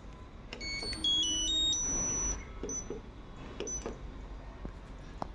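Electronic beeper of a Whirlpool top-load washing machine's control panel: a short tune of stepped beeps at changing pitches, the power-on chime, followed by two short single beeps of the kind given by button presses.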